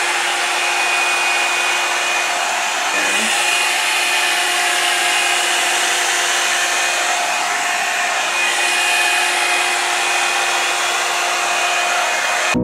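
Revlon One-Step Hair Dryer and Volumizer (a round-brush hot-air dryer) running steadily: a rushing of air with a steady motor whine, its hiss shifting slightly as the brush is drawn through damp hair.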